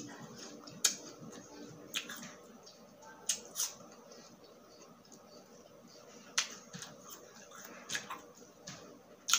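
Crunching and chewing of raw apple slices, close to the microphone: a crisp crunch every second or two between quieter chewing.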